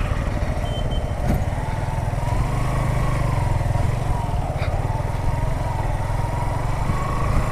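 Motorcycle engine pulling away slowly in a low gear, its revs rising and falling gently as the bike is eased through deep mud ruts.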